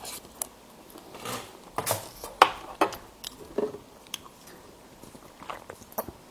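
A person chewing and biting food close to the microphone: scattered wet mouth clicks and short smacking sounds.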